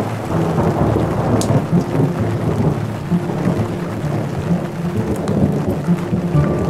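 Thunder rumbling steadily under rain, a dense low rumble that rises and falls without a sharp crack.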